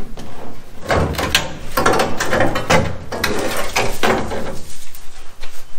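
The old rusted steel quarter panel of a 1969 Chevy Nova being bent and pulled off the body by hand, the sheet metal creaking and crackling in irregular clicks as it tears free along the cuts, starting about a second in and easing off near the end.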